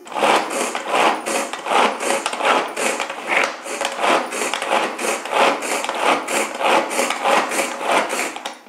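Pull-cord manual vegetable chopper worked fast, about three pulls a second: each pull zips the cord out and spins the blades through chopped onion, green chilli and herbs in the plastic bowl.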